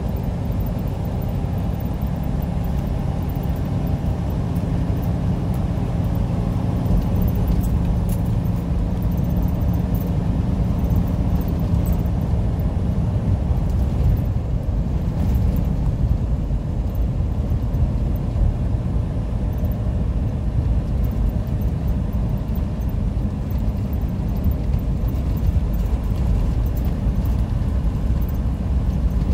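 Semi truck cab at highway speed: steady engine drone and road noise, heard from inside the cab.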